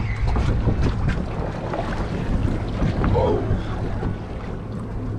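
Wind buffeting the microphone aboard an offshore fishing boat, over a steady low rumble, with a few light knocks.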